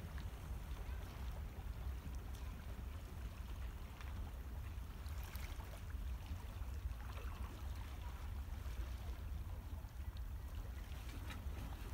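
Calm sea water lapping and trickling gently around shoreline rocks, with a steady low rumble underneath.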